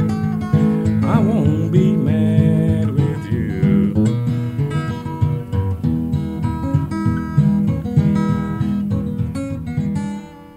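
Acoustic guitar played Piedmont-blues style, fingerpicked runs and chords with no singing, closing on a final chord that rings out and fades about ten seconds in.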